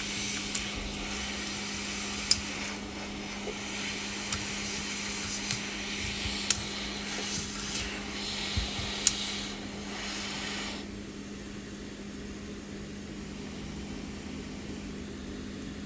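Hot-air heat gun blowing steadily while a metal tool picks and taps at the broken back glass of an iPhone 11, giving several sharp clicks. The blowing stops about eleven seconds in, leaving a steady low hum.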